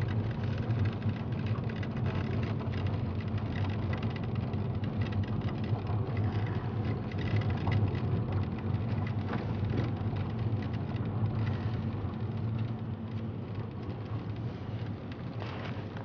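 Car driving, heard from inside the cabin: a steady low engine hum with tyre noise on a rough asphalt road, easing slightly in the last few seconds.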